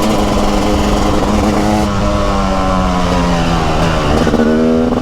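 TM SMR 300 supermoto's single-cylinder two-stroke engine running under way at a steady pitch, easing off slightly about four seconds in, then revving up again near the end.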